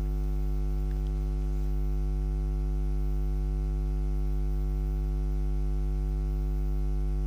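Steady electrical mains hum, a low buzz with a ladder of evenly spaced overtones that never changes. It is picked up in the audio chain of the broadcast, not made by anything in the scene.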